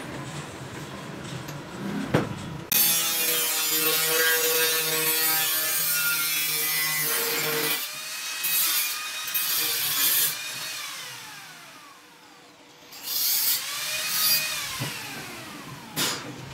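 Electric angle grinder switched on and run against a stainless steel strip for about five seconds, its motor whine falling away as it spins down. It is started again for a second short burst of grinding and winds down once more near the end.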